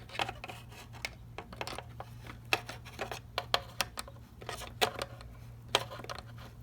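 Pliers and small screws or parts clicking and tapping irregularly against a plastic headlight-switch knob assembly, a few sharp clicks a second.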